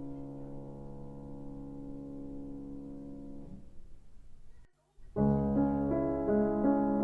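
Piano music: a held chord dies away, a brief silence about four and a half seconds in, then another piano passage starts, louder.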